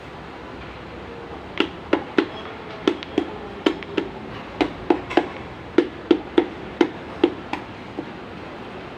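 Hammer tapping repeatedly, about two or three sharp knocks a second, starting about a second and a half in and stopping near the end, over a steady background hum.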